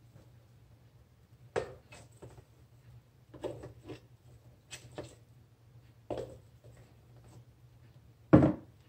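Kitchen utensils being handled at a utensil crock: a series of clinks and knocks as spatulas are pulled out and pushed back, with a heavier thump near the end, over a faint steady hum.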